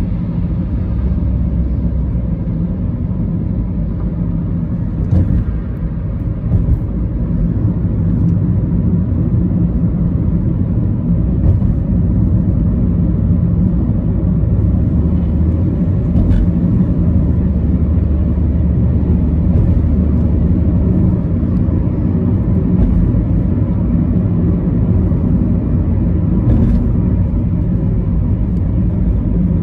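Car driving at steady speed, heard from inside the cabin: a constant low rumble of engine and road noise, with a few faint clicks.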